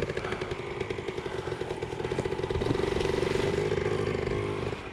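Dirt bike engine running steadily, its note cutting off near the end.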